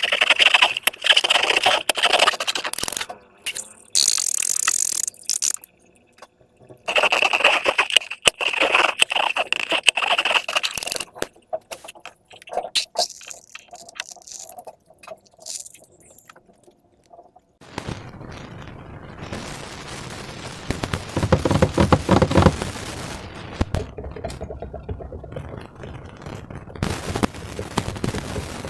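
Slime being squeezed and worked by hand, with fast sticky crackling and popping in several bursts. A longer, lower squishing stretch comes near the end.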